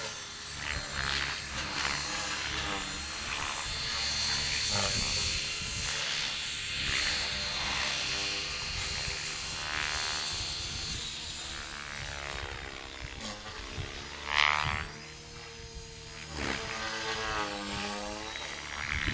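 Align T-Rex 450 Pro electric RC helicopter in hard flight, its rotor blades whooshing and motor whining, the pitch sweeping up and down as it climbs, dives and turns, loudest about two-thirds of the way through.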